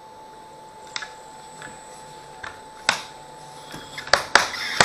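Scale RC hydraulic CAT 330D L excavator driving off a semi-trailer, its tracks clacking and knocking on the trailer deck. The knocks are sparse at first, with a loud one about three seconds in and three loud ones close together near the end as the machine tips over the trailer's edge, over a faint steady whine.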